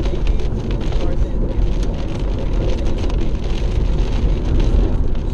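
Car interior while driving in a heavy storm: steady low road and engine rumble with heavy rain pelting the car's body and windshield in a dense crackle.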